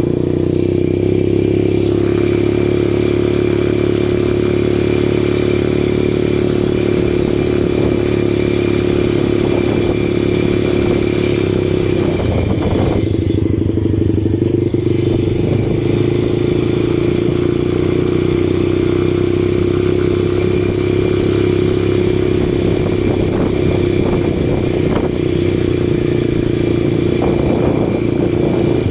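ATV engine running steadily under way, its pitch dipping briefly about halfway through before settling again.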